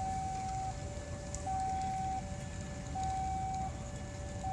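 Electronic warning signal sounding two alternating tones, a higher one and a lower one, each held for under a second and repeating steadily, over a low rumble.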